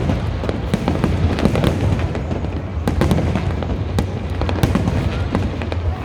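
Fireworks display going off without pause: a continuous low rumble of bursts with many sharp cracks and pops layered over it.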